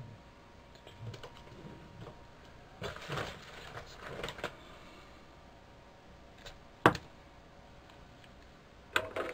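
Light clicks and rattles of small tools being handled on a workbench, busiest about three to four seconds in, with one sharp click about seven seconds in and two more near the end.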